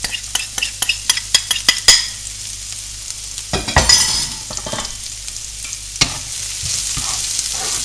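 Diced onion and garlic frying in hot meatball fat in a frying pan. A quick run of crackling pops comes as the garlic is tipped in, with a dull knock about four seconds in, then a steadier sizzle as a spatula stirs.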